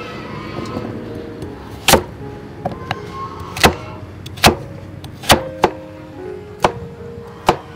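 About seven sharp knocks of kitchen work, irregularly spaced, over background music.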